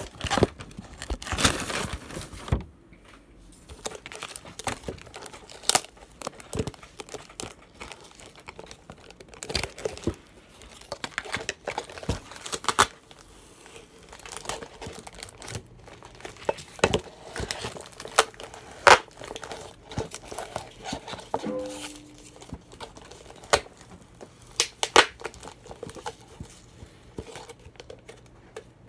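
Duct tape being worked by hand: irregular crinkling and short ripping sounds as it is pulled and torn from the roll and pressed on.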